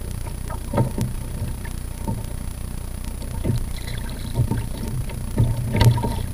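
Small waves slapping against the plastic hull of a sit-on-top kayak in irregular knocks, about one every second, over a steady low rumble of wind on the microphone.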